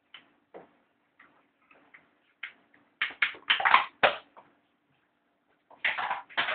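A West Highland white terrier chewing and worrying at its fabric dog bed: a string of short, sudden rustling and chewing sounds. They are sparse at first, then come in dense louder clusters about three seconds in and again near the end.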